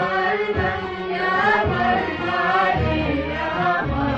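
Arabic orchestral music from a live ensemble: a string section carries an ornamented, wavering melody over low beats that come about once a second.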